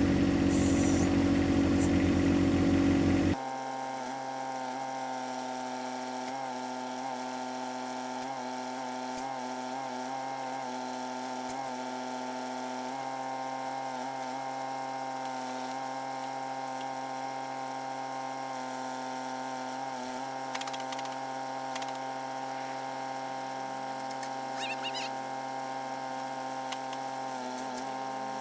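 A compact tractor's diesel engine runs loud for about three seconds, then cuts off abruptly. A steady, lower hum of several tones carries on after it.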